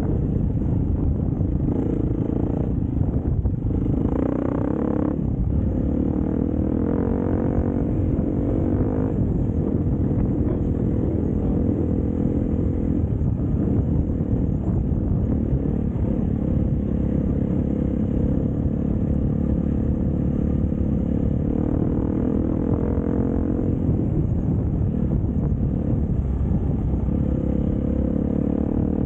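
Dirt bike engine running at a steady cruising speed, the revs rising briefly a few times, with wind noise on the helmet-mounted microphone.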